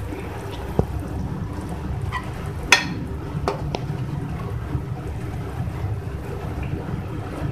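A metal spoon knocking and scraping against the karahi as chicken curry is spooned out for serving: a few separate clinks, the sharpest about three seconds in, over a steady low rumble.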